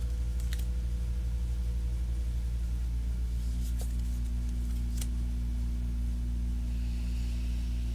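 A steady low hum with a faint tone that steps down in pitch about three seconds in, and a couple of soft clicks from tarot cards being handled and turned over.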